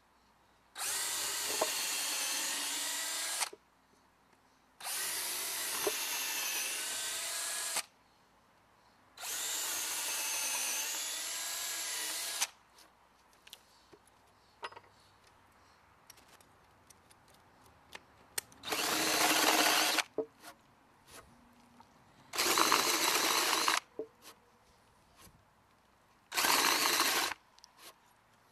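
Cordless drill boring holes into pressure-treated lumber in three runs of a few seconds each. A quiet stretch follows with small clicks and handling noises, then three shorter bursts of drilling.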